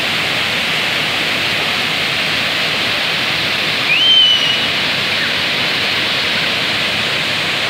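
Ornamental cascade fountain: a steady, even rush of water falling over a wall into a basin. About four seconds in, a short high whistle-like tone rises and briefly holds above it.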